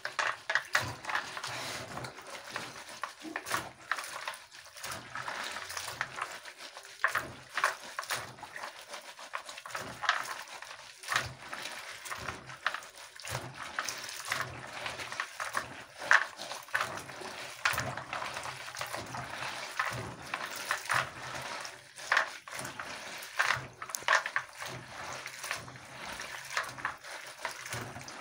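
Beans being washed by hand in a bowl of water: irregular sloshing and splashing as hands rub and stir them, with scattered knocks of beans against the bowl.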